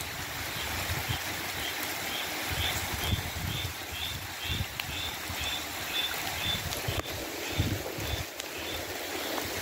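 Steady rain with wind buffeting the microphone in uneven low gusts. A faint high chirp repeats about twice a second through the middle.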